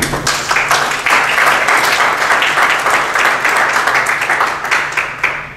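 Audience applauding, a dense patter of many hands clapping that starts all at once and dies away near the end.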